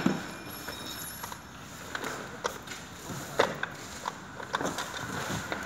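Scattered light clicks and knocks from an office chair being handled and adjusted during assembly, over steady room noise.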